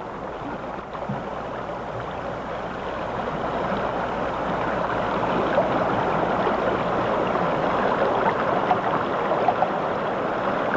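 Shallow river water flowing over a sandy bed, a steady rushing babble that grows a little louder over the first few seconds.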